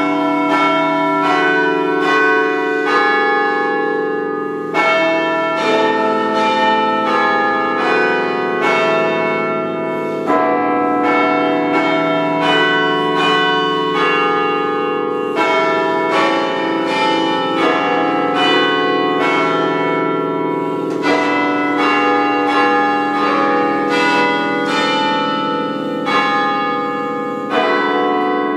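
Carillon bells played from the baton keyboard, ringing out a melody of struck notes, with the low bells' tones ringing on and overlapping under the quicker higher notes.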